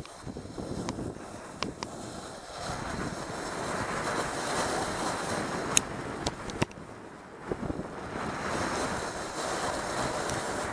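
Wind noise on a helmet camera's microphone and the hiss of a board sliding and carving through snow, swelling and fading in long waves with the turns. A few sharp clicks about six seconds in.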